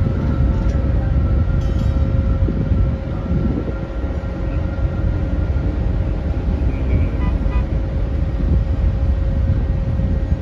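Steady low rumble of machinery with a constant mid-pitched hum held throughout, and a few faint clicks.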